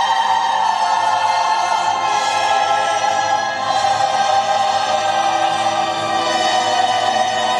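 Slow music with long held chords, heard as choral or orchestral, playing continuously from a recording.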